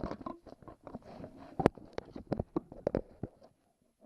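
Irregular clicks and knocks of hand tools and treadmill parts being handled, several sharp taps about a second apart, with low handling noise between them, dying away near the end.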